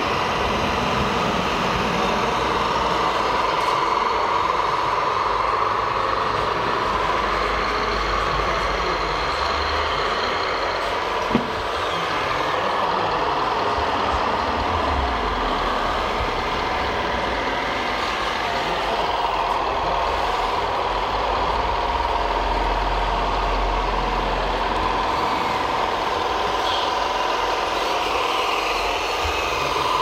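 Radio-controlled model construction machinery running: a steady electric-motor and hydraulic-pump whine that slowly rises and falls in pitch over a low rumble, with one sharp click about eleven seconds in.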